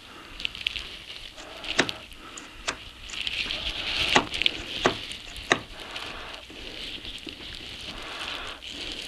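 About five sharp knocks and clinks, irregularly spaced, on the Atlas 10F lathe's headstock spindle as it is driven out with a rubber mallet. The spindle is stuck in the headstock and barely moves. A steady high hiss lies underneath.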